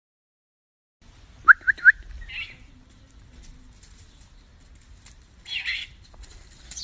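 Owl calls: three quick rising chirps about a second and a half in, then short raspy hissing calls, one just after the chirps and another about three seconds later.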